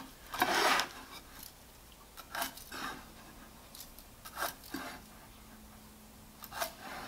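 Pencil scratching short layout lines along a combination square's blade on a wooden board, with the square shifted between marks: several brief, separate scraping strokes.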